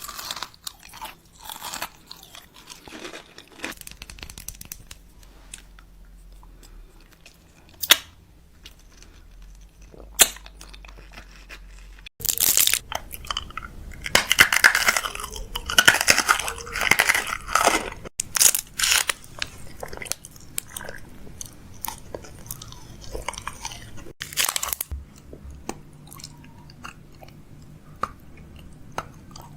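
A person biting and chewing crunchy food close to the microphone, with sharp crunches that come thickest about halfway through.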